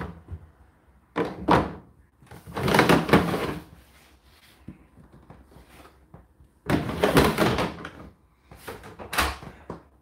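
Plastic lint filter of an Indesit condenser tumble dryer being pulled out of its slot in the door opening, handled and pushed back in. The sound is a few bursts of plastic knocking, rubbing and rustling, the loudest about three seconds in.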